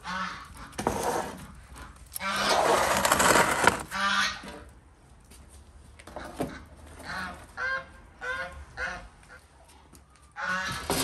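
Farmyard poultry calling: a loud, long call about two seconds in, then a string of short calls about one every half second, and another loud call near the end.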